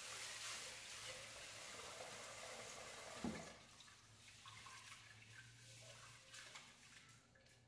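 Water running from a kitchen tap, stopping about three and a half seconds in with a knock, followed by a few faint clinks.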